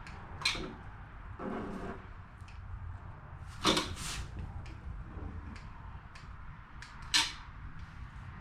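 Sharp clicks from a caulking gun as its trigger is squeezed to push out seam sealer, with fainter ticks between them. The loudest clicks come about half a second in, about three and a half seconds in and near the end.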